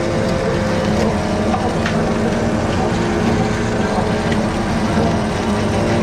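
Fishing boat's engine running steadily, with a few light clicks over it.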